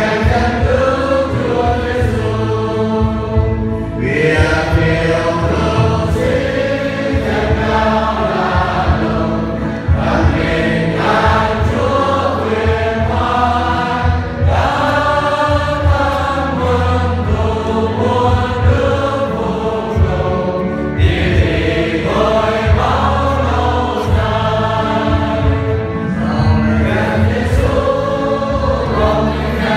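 Many voices singing a hymn together in a church, in phrases of a few seconds each with short breaks between them.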